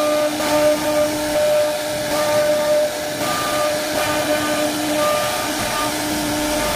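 CNC router spindle whining as its bit cuts engraved grooves into laminated MDF board, with a steady hiss of cutting; the whine's tones come and go every second or so as the bit moves along the pattern.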